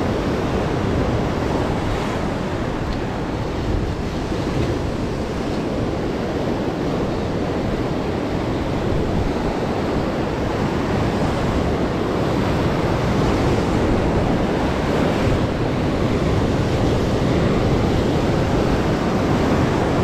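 Rough sea surf breaking and washing over shoreline rocks in a steady rush of whitewater, with wind on the microphone.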